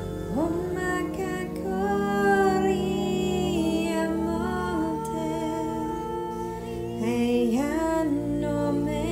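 Wordless light-language vocals: a woman's voice sings long held notes over a steady sustained drone, sliding up into a new note just after the start and again near the end.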